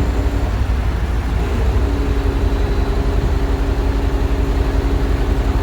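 Diesel engine of a crane-manipulator truck running steadily while powering the hydraulic crane during a lift. A steady hum sets in about two seconds in.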